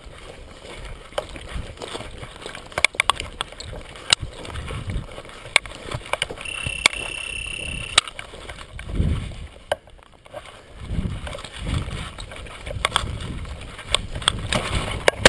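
Footsteps crunching and swishing through dry prairie grass and sagebrush, with many small clicks and crackles and low rumbles of wind on the microphone. About halfway through, a steady high tone sounds once for about a second and a half.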